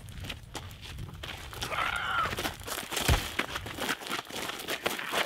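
Footsteps crunching and scuffing on a gravel road as people scuffle, with a short rising-and-falling tone about two seconds in and a heavy thump about three seconds in.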